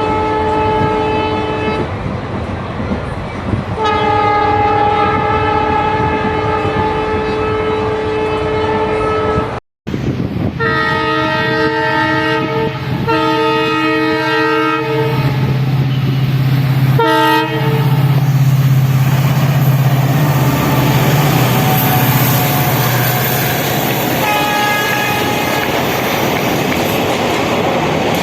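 WDP4D diesel locomotive sounding its multi-tone horn in repeated blasts, several long and a couple short. From about halfway in, its EMD two-stroke engine sets up a loud deep hum as it accelerates under load, with wheels clattering over the rail joints.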